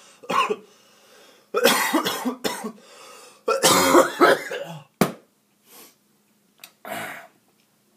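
A person coughing in several loud bursts, with throat-clearing, the longest two lasting about a second each, followed by a sharp click and a few shorter coughs.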